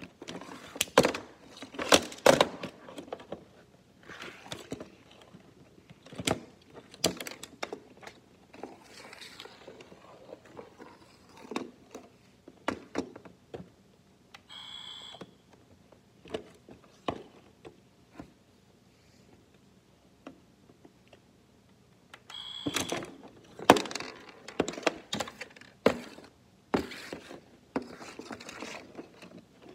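Scattered clacks and knocks of hard plastic toy hockey figures and a puck on a Playmobil tabletop hockey rink, coming in clusters with quiet gaps. A short high beep sounds about halfway through.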